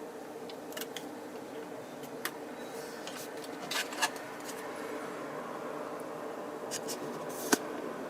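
Light, sharp clicks and taps of small plastic kit parts and tools being handled during model assembly, a few scattered strokes with the sharpest near the end, over a steady background hum.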